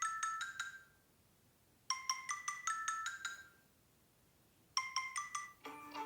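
Samsung Galaxy J7 (2015) ringtone: a short, bright, chime-like phrase of quick notes about a second long, repeating three times about three seconds apart. Near the end a different, fuller ringtone melody begins.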